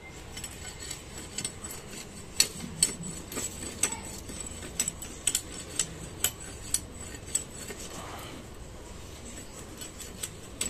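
A knife blade scraping and shaving bark off a long wooden stick in short, irregular strokes, about one or two a second, each a sharp scrape.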